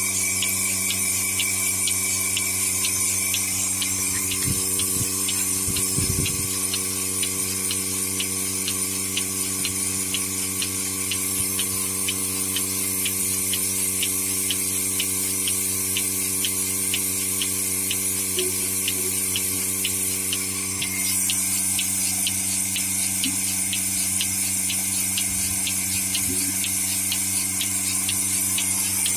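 Electric cow milking machine running while a cow is milked: a steady hum from its vacuum pump motor, a hiss of air, and a fast, even ticking from the pulsator as milk is drawn through the teat cups into the claw bowl.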